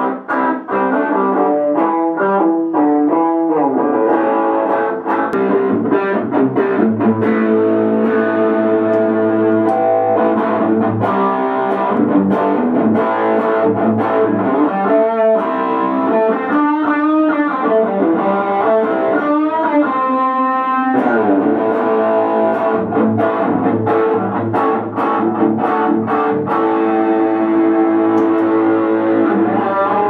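Electric guitar, a Les Paul-style solid body, played through a pedalboard of effects pedals: a run of picked single notes and held notes, several of the held notes wavering in pitch in the middle stretch.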